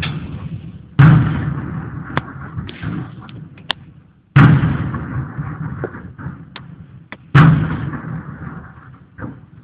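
Saluting gun aboard HMS Belfast firing a gun salute: three loud booming shots about three seconds apart, each followed by a long echoing tail that dies away over two to three seconds.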